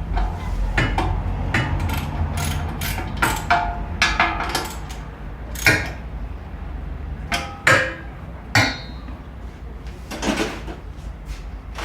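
Irregular knocks and clinks of hand tools working on metal, a dozen or so sharp strikes, one near the end of the busiest stretch ringing briefly, over a steady low hum.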